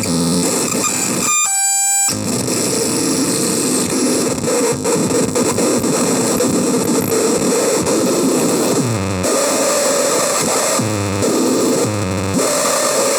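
Screaming Baby CMOS noise synth putting out a loud, dense harsh-noise wall. About a second in it breaks briefly into a clean pitched buzz, and near the end low stepped pitches fall repeatedly through the noise.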